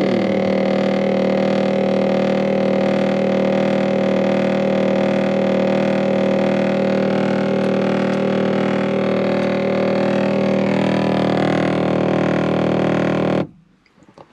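Front sunshade drive motor in the roof of a Jaguar XJL (X351) running after the close button is pressed: a loud, steady drone of many held tones that cuts off suddenly near the end. The shade fails to close, a fault the owner puts down to the motor.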